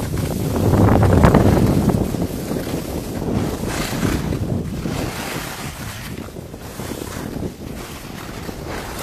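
Wind rushing over the microphone of a camera carried by a moving skier, mixed with the hiss of skis carving turns on snow. It swells with each turn, is loudest about a second in, and eases off after that.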